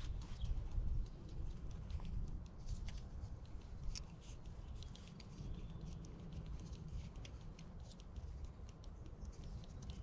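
Small irregular clicks and scratches of a plastic drinking straw being worked into a freshly drilled tap hole in birch bark by hand, over a steady low rumble.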